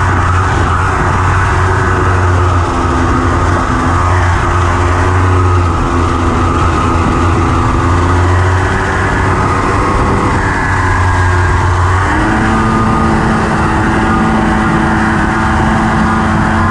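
Honda FL350 Odyssey dune buggy's engine running hard under way, its pitch rising and falling with the throttle. About twelve seconds in its note shifts and settles at a new steady pitch.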